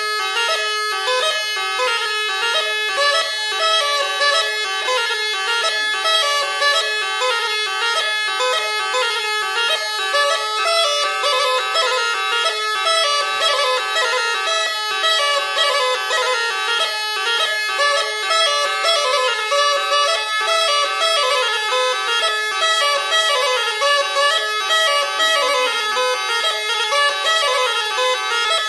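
Bagpipe with a skin bag playing a quick, ornamented folk melody on the chanter over a steady drone.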